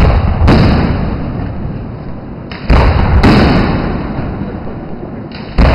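Aerial fireworks shells bursting: two pairs of loud booms, each pair about half a second apart, with a third boom near the end. Each boom dies away slowly over a second or two.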